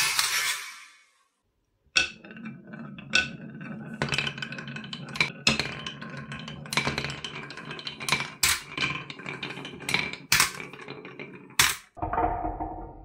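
A marble lands with a sharp clack in a plastic toy truck bed and rings briefly. After a second of silence, a marble rolls and rattles over the bumps of a wooden wave track, with many sharp clicks, and ends in one loud click near the end.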